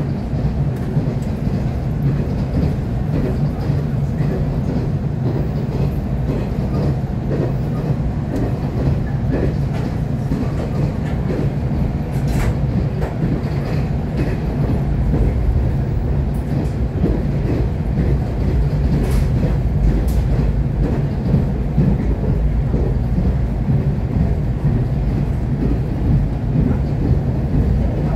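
Cabin of a JNR-built express-type electric train running at speed: a steady low rumble of wheels on rail and running gear, with a few sharp clacks over rail joints about twelve and nineteen seconds in.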